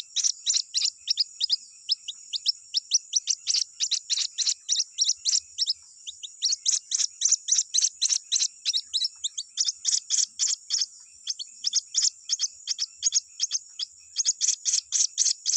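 White-breasted waterhen chicks calling for their parent: a rapid run of short, high cheeps, each falling in pitch, about five a second, with a brief pause about six seconds in.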